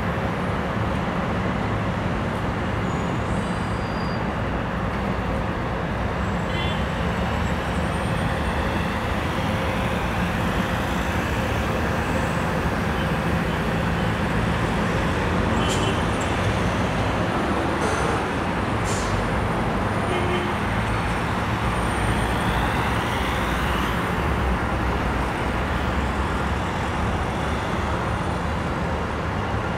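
Steady city road traffic: a continuous wash of cars and buses on the streets below, with a few faint brief clicks in the middle.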